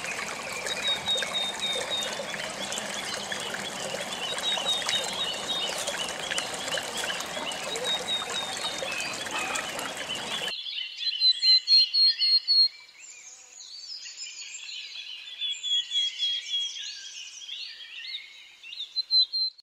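Shallow stream water trickling steadily, with small birds chirping in repeated quick series over it. About ten seconds in the water noise cuts off abruptly, leaving clear birdsong alone.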